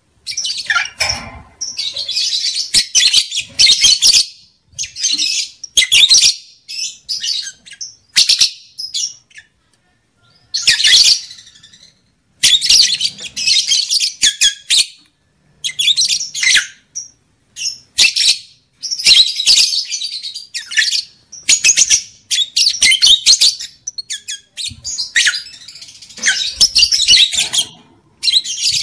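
Lovebird chattering: rapid, shrill chirps run together in bursts of about a second, one after another with short pauses between. The chatter is breeding-season calling of the kind played to stir lovebirds into mating condition.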